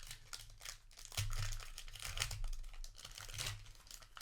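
A foil booster pack wrapper being crinkled and torn open by hand, an irregular run of crackles with a few dull handling bumps.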